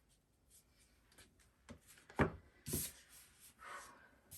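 Oracle cards being handled and laid down on a table: a few soft taps, the sharpest about two seconds in, with light rubbing and sliding of card.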